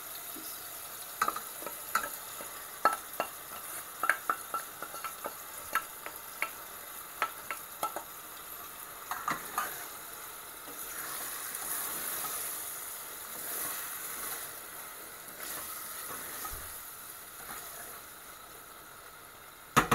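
A wooden spoon stirs cooked chana dal into a stainless steel pot of fried courgette. In the first half the spoon knocks lightly and often against the pot, and the mixture sizzles in the hot pot, the hiss rising about halfway through.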